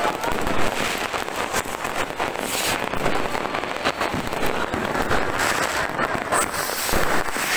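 Many fireworks and firecrackers going off at once: a dense, unbroken run of overlapping bangs and crackles from aerial shells bursting overhead.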